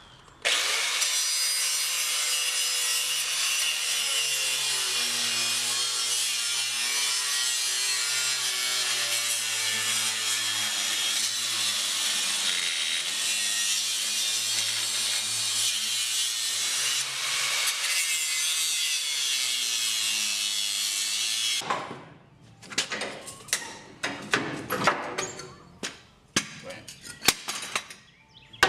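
A power saw's blade cuts steel for about twenty seconds: a steady, loud hiss over a motor tone that wavers under load, which stops suddenly. It is followed by irregular metal knocks and clanks, as the old trailer jack is worked loose.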